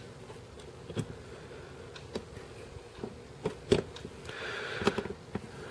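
Scattered light metal clicks and taps as a steel punch and trigger pin are worked into the frame of a Martian Commercial 6.35mm pistol, the trigger being held forward against its spring so the pin can drop into its hole. A brief scraping rub comes a little over four seconds in.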